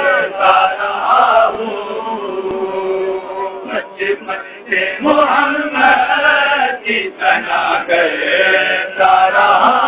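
Unaccompanied male voices chanting a naat, the melody drawn out in long held notes.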